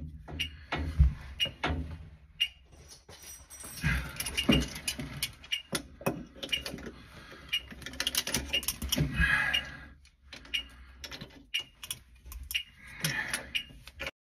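A brass compression fitting on copper pipe being handled and tightened with two pairs of grips: irregular metallic clicks and clinks, with a few short scraping stretches as the nut is turned.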